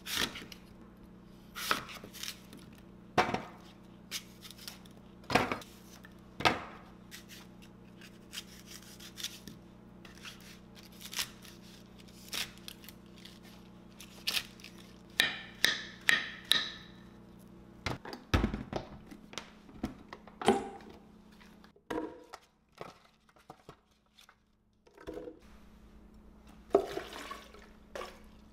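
Chef's knife cutting an apple and kale leaves on a wooden cutting board: irregular sharp knocks of the blade hitting the board, with some rustling of leaves, over a steady low hum that drops away about two-thirds of the way through.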